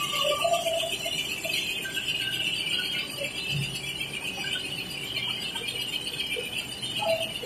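Richpeace L1500 high-speed multi-needle quilting machine running steadily, a continuous high-pitched mechanical rattle, with a few brief faint squeaks.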